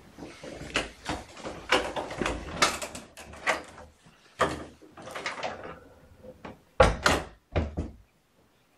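A run of knocks and bumps as a person leaves the room, ending in a door banging shut about seven seconds in, with two more knocks close behind it; then the sound cuts off suddenly.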